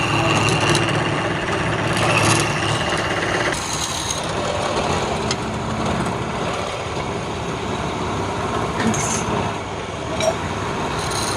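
Wood lathe running steadily. Its low hum drops away about three and a half seconds in, and the machine noise carries on after that.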